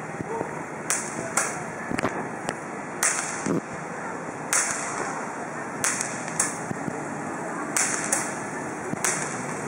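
Street fireworks going off overhead: about nine or ten sharp cracks at irregular intervals, each trailing off in a brief hiss.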